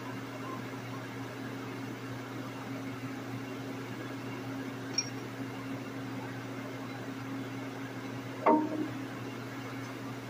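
Steady low machine hum in a machine shop. About eight and a half seconds in, a single sharp metallic clink with a brief ring, like a steel tool set down on the iron mill table.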